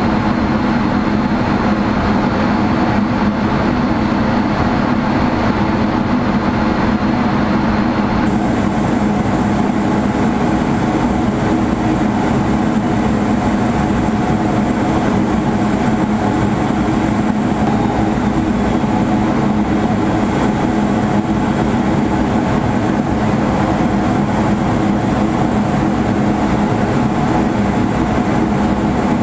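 Steady, loud drone of a fighter jet heard from inside the cockpit: engine noise and air rushing over the canopy, with a constant low hum. About eight seconds in, the hiss changes slightly.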